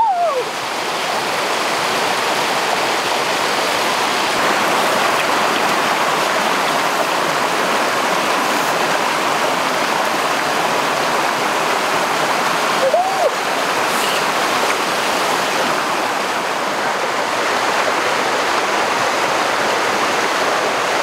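Steady rush of a small waterfall and stream running over rocks, with a brief high call rising and falling about two-thirds of the way through.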